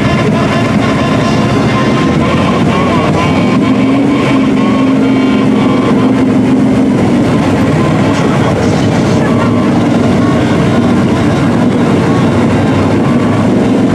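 Big mud truck's engine revving hard and held at high revs while the truck sits bogged down in deep mud water, barely moving. The pitch lifts a little about four seconds in and then holds steady.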